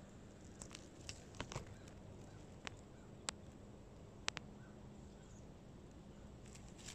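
Quiet outdoor background with a faint low hum and scattered faint sharp clicks and ticks, about a dozen, mostly in the first two thirds.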